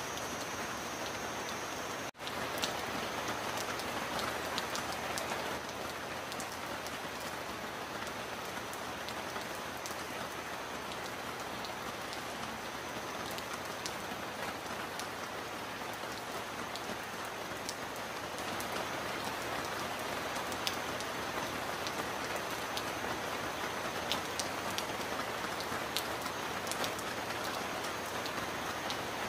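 Heavy rain falling steadily on a metal roof, with scattered sharp drop ticks; the sound cuts out for an instant about two seconds in.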